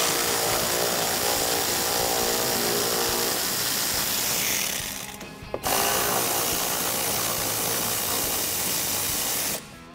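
Cordless electric ratchet with an 8 mm socket running twice, backing out two 8 mm screws. The first run lasts about four seconds and fades out. The second starts suddenly about a second later and runs about four seconds.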